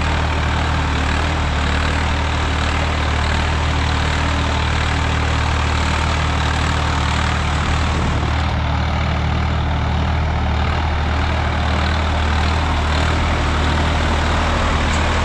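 Swaraj 855 FE tractor's three-cylinder diesel engine running steadily at an even pitch while it works a field.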